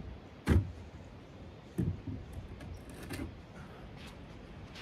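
Three knocks or thumps about a second and a quarter apart. The first, about half a second in, is the loudest, and the third is faint.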